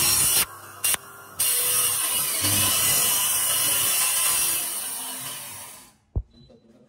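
Power saw cutting: a loud, harsh cutting noise that breaks off abruptly twice in the first second and a half, then runs on and dies away about five to six seconds in. A single sharp knock follows just after.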